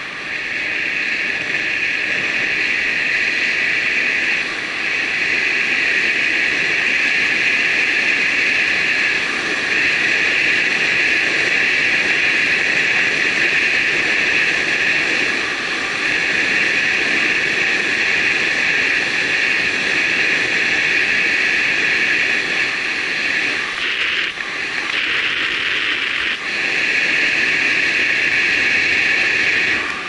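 Wind rush and road noise on a moving bicycle's camera microphone while riding a paved road, under a steady high-pitched buzz that breaks up for a couple of seconds near the end.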